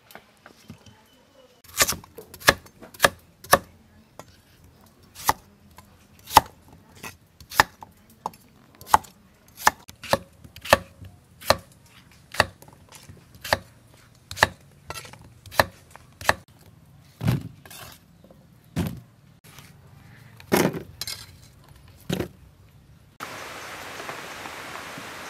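A large kitchen knife chops daikon radish on a thick wooden chopping board, in sharp separate chops at an uneven pace of about one or two a second. Near the end it gives way to the steady hiss of a big pot of soup at a rolling boil.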